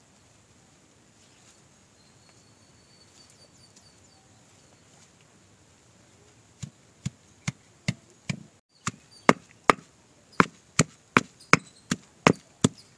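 Stone pestle pounding rose petals in a small stone mortar: sharp knocks in a quick, even rhythm of about two to three strokes a second, starting about halfway through.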